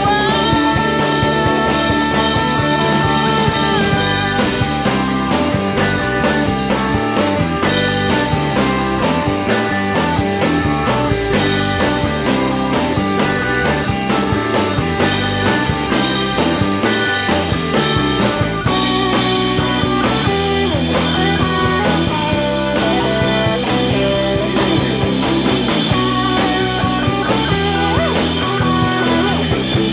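A rock band playing: drum kit with cymbals, acoustic-electric guitar and electric guitar, with a long held note over the first few seconds.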